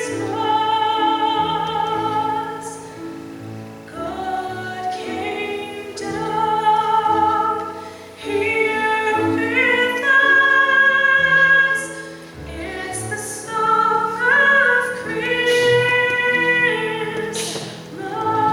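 A woman singing a Christmas solo in a full, operatic style with vibrato on long held notes, over sustained instrumental accompaniment.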